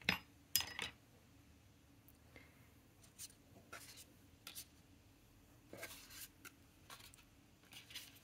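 Paper swatch cards being slid and laid down on a tabletop: scattered soft taps and paper rustles, the sharpest in the first second.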